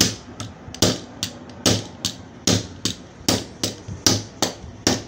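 Hammer blows on a steel hollow punch held on a wooden block, punching the centre hole of a handmade gasket. Sharp strikes about two and a half a second, heavy and lighter blows alternating.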